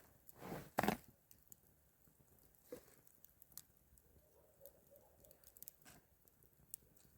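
A brief rustle and a sharp crack about a second in, then scattered faint clicks and ticks.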